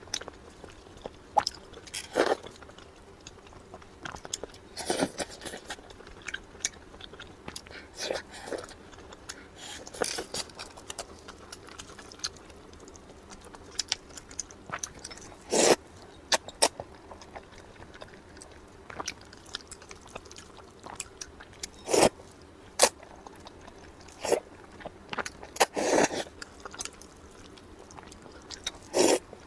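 Close-up eating: a person biting and chewing food, with irregular crunches and sharp clicks every second or two.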